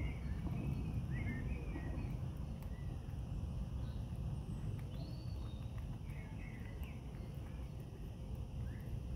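Outdoor ambience: a steady low rumble with a few short bird chirps, near the start, about five seconds in and about seven seconds in, and scattered faint clicks.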